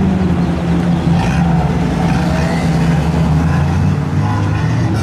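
Lamborghini Gallardo's V10 engine running at low revs as the car rolls past, a steady low drone.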